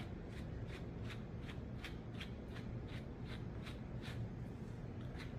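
Quick, even brush strokes through a dog's curly coat, about three a second, as a slicker brush works back over a tangled patch that a comb would not pass through.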